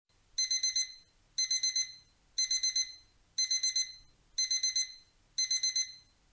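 Digital alarm-clock beeping: bursts of four quick high-pitched beeps, repeating about once a second, signalling that the countdown has reached zero.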